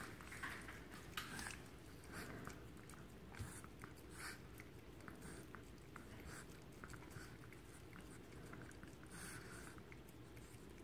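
Two long-haired chihuahuas licking peanut butter off a fingertip: faint, rapid wet licks and lip smacks.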